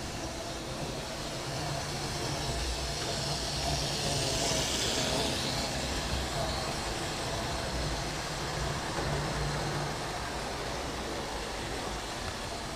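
Analogue model trains running on the layout's track: a steady rumble of motors and wheels on the rails, swelling to its loudest about four to five seconds in as a model InterCity 125 set passes close by.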